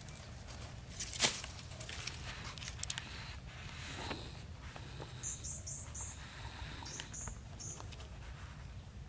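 Rustling in grass and dry stems with a sharp snap about a second in, over a steady low rumble. About five seconds in, a small bird gives four quick high chirps, then three more a second later.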